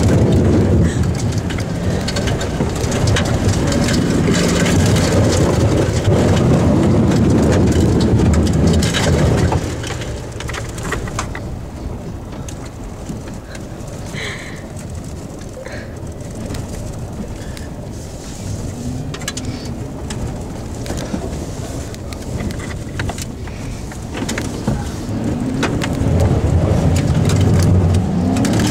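Pickup truck driving through a deep puddle, heard from inside the cab: water splashing hard against the body and windows over the low rumble of the truck. Loud for the first ten seconds or so, much quieter through the middle, then loud again near the end.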